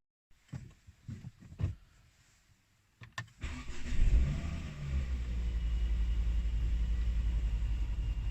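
A few light knocks and clicks, then a Volvo 2.5T turbocharged inline-five engine cranks and catches a little over three seconds in. It flares up briefly and settles into a steady idle, running with a newly fitted crankcase ventilation valve diaphragm.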